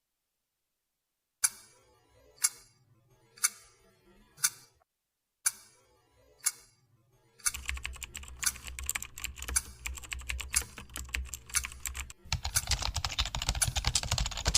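Sharp single clicks about a second apart, six in all, then a run of rapid clicking like typing that starts about halfway in and grows louder near the end.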